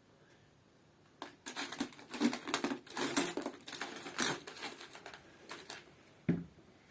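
Rapid clicking and clattering of small hard objects being handled, starting about a second in and thinning out after about four seconds into a few scattered clicks, with a single low knock near the end.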